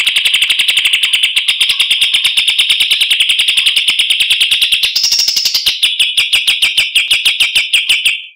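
Recorded songbird singing a fast, high, rattling trill of evenly repeated notes, about ten a second; the trill changes pattern about five seconds in and cuts off abruptly near the end.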